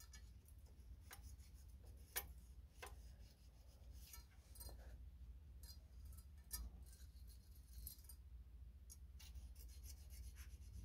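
Faint, scattered clicks and scrapes of steel feeler-gauge blades slid into the valve clearance of a lawnmower engine as the clearance is checked, the sharpest click about two seconds in, over a low steady hum.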